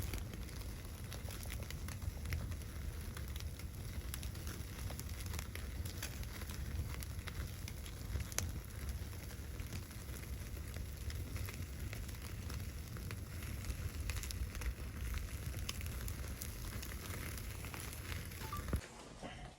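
Wood fire crackling with scattered sharp pops over a steady low rumble, cutting off abruptly just before the end.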